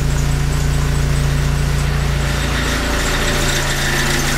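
2002 Dodge Neon's four-cylinder engine idling steadily, a constant low hum.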